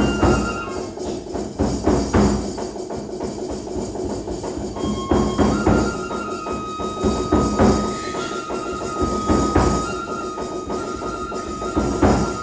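Traditional Japanese kagura music: a high flute line of long held notes that step in pitch, over drum strikes every second or two.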